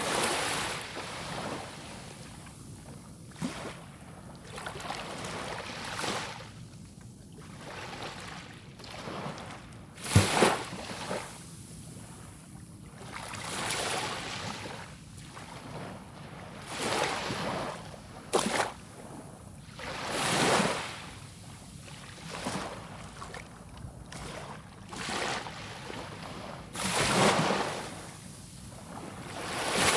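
Small sea waves breaking and washing up a sandy beach, one swell of surf every few seconds, the loudest about a third of the way through, with some wind on the microphone.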